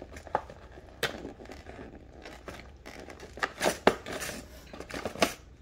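Product packaging and small parts being handled: plastic and cardboard rustling with irregular sharp clicks and knocks, loudest in a cluster about three and a half seconds in and again around five seconds in.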